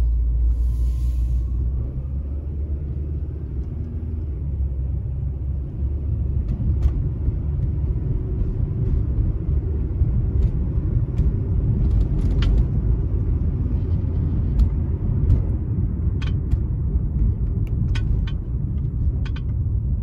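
Inside the cabin of a 2006 Toyota Corolla with its 1.8-litre four-cylinder engine, the engine runs steadily while the car climbs a hill, mixed with road rumble and occasional light clicks and rattles. The engine is running without misfiring; the scan tool counts no misfires on any cylinder.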